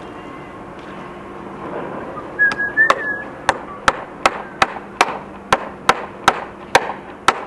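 Hammer driving a nail into a wooden timber-frame rafter: a steady run of sharp blows, about two and a half a second, starting a little over two seconds in.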